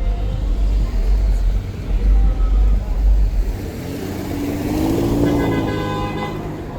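A car passing close on a city street, its sound swelling and falling away over the second half, with a short car-horn toot near the end. Music with a heavy bass beat plays over the first few seconds.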